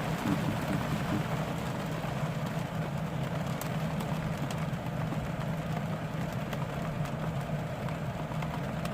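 Steady rain falling on a van's roof, with a few faint drop ticks, over the constant low hum of the van's air conditioner.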